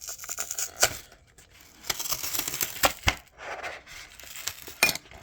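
A cardboard-and-plastic blister pack being torn and pried open by hand: stretches of tearing and crinkling broken by several sharp snaps and clicks.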